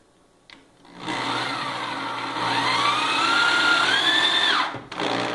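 Corded electric drill driving a long 2-inch wood screw into plywood. The motor starts about a second in, runs up with a rising whine partway through, and stops shortly before the end.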